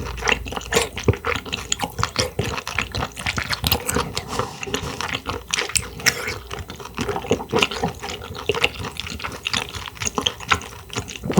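Close-miked wet eating sounds: rapid moist clicks and squelches of someone chewing and slurping clams, continuing without a break.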